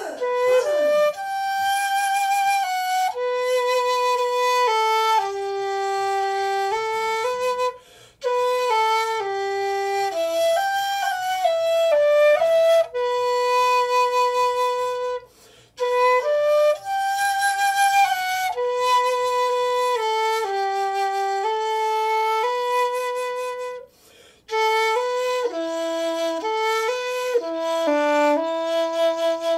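Xiao, a Chinese vertical bamboo flute with a Tang-style notch, in G, playing a slow solo melody of held notes. The line breaks for a breath about every eight seconds.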